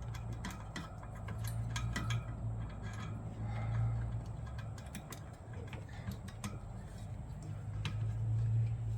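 Irregular metallic clicks and taps as a bicycle wheel is handled and fitted into the clamps of a truing stand, over a steady low hum.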